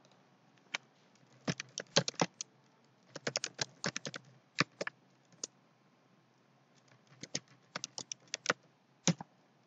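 Typing on a computer keyboard: short bursts of keystrokes separated by pauses, ending with a single keystroke near the end.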